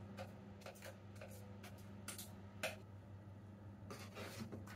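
Faint scrapes and taps of a spatula against a mixing bowl and a metal baking tray as thick banana bread batter is scraped out and spread. The clearest tap comes about two and a half seconds in, and a longer scrape comes near the end, over a faint steady hum.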